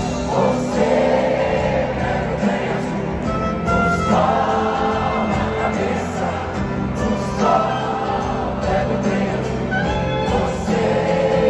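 Live band playing a slow song on a stadium sound system, with many voices singing the melody together in long phrases, heard from amid a large crowd.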